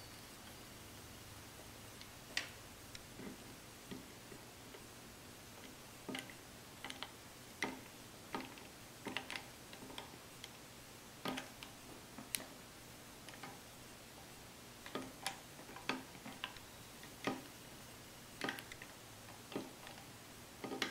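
Small, sharp metallic clicks and taps at irregular intervals, roughly one a second, as hand tools and steel parts are worked during reassembly of a lever-action rifle, easing a part that is going in slightly crooked.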